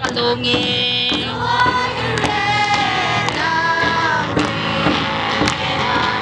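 A group singing a gospel hymn together, several voices holding long notes, with hands clapping along.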